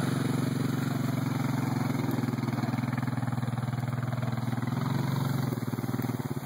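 ATV (quad bike) engine running steadily as the quad drives across rough grass, with a fast, even pulsing beat. It eases off slightly near the end.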